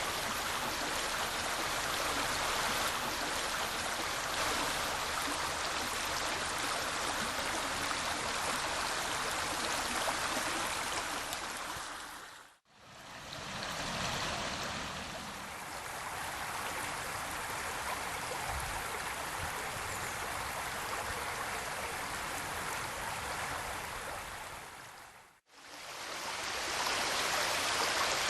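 Steady rushing of flowing river water. It fades out briefly twice, a little past the middle and near the end, and sounds a little duller after the first fade.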